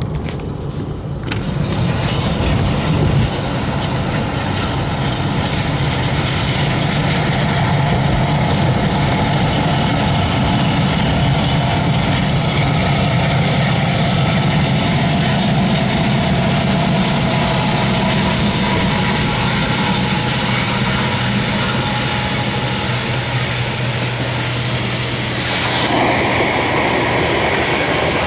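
A car driving on a road, heard from inside the cabin: steady engine and tyre noise. About two seconds before the end the sound changes suddenly, giving way to a coal train's hopper cars rolling past.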